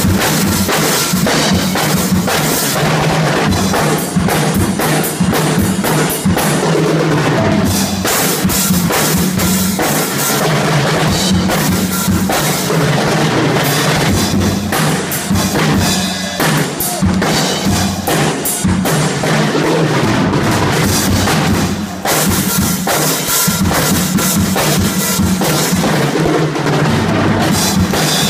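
Music with a drum kit played throughout, with dense, rapid hits on bass drum, snare and cymbals.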